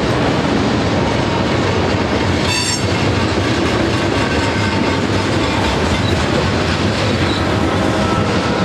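Freight cars of a long mixed freight train rolling past close by, making a steady loud rumble and rattle of wheels on rail. A brief high-pitched squeal comes about two and a half seconds in.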